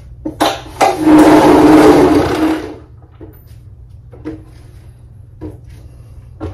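Electric drill motor running for about two seconds, with a steady whine, followed by a few faint knocks.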